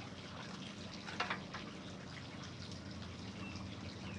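Quiet steady background noise with a brief rustle about a second in, from a succulent being worked into the soil of an arrangement.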